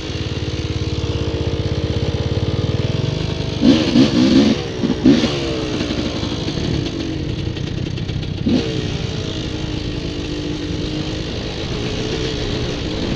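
Quad bike engine running under way on a dirt trail, with a cluster of quick revs about four seconds in and another short blip past the middle.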